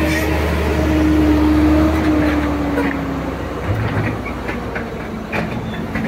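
Heavy-equipment diesel engine running steadily with a low hum and a whining tone that sinks slightly partway through. A few sharp knocks come near the end.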